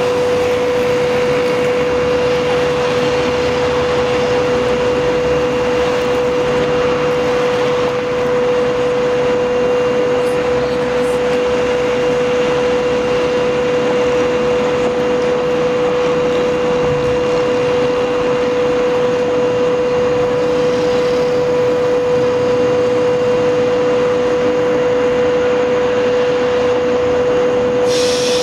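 SS8 electric locomotive standing with its cooling blowers running: a steady, loud fan drone carrying a constant mid-pitched whine.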